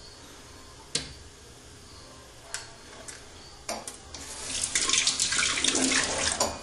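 A few light knocks, then water from a tap runs into a sink for about two seconds near the end and stops.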